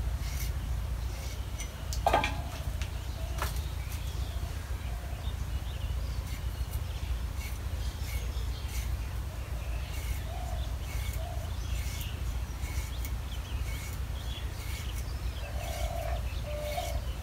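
Small birds chirping again and again over a steady low rumble, with a few sharp clicks from a small knife cutting potatoes by hand. The loudest click comes about two seconds in.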